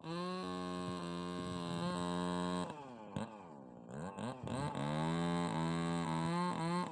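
Two-stroke chainsaw running at high revs while sawing ulin ironwood. It comes up to speed suddenly, runs steady, then its pitch drops sharply about three seconds in as the chain bogs in the hard wood, and it climbs back to full speed a second or two later.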